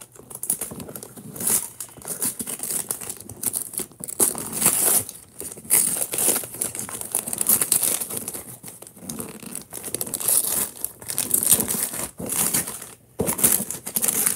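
Wrapping paper being torn by hand off a gift box, in a run of uneven rips and crinkles.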